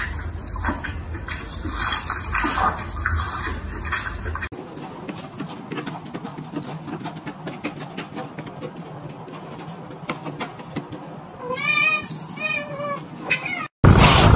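A domestic cat meowing twice in quick succession about twelve seconds in, short calls that rise and fall in pitch. Before that there are only faint clicks over a low hum. Just before the end a sudden loud rush of noise begins.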